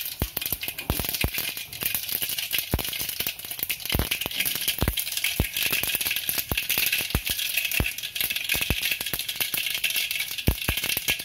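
Mustard seeds spluttering in hot oil in a metal pot: an irregular crackle of sharp pops over a steady high sizzle.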